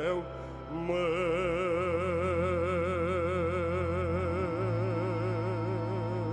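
Romanian folk music: after a brief dip, a long held melody note with wide, even vibrato starts about a second in, over sustained backing whose bass note changes twice.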